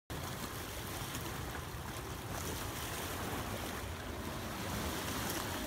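Wind buffeting the microphone, a steady low rumble, over small waves lapping against a rocky shoreline.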